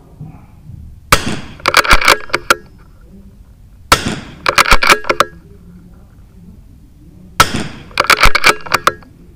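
Three .22 LR rifle shots from a RimX rifle, about three seconds apart. Each is a sharp crack followed by a quick run of sharp clicks lasting about a second.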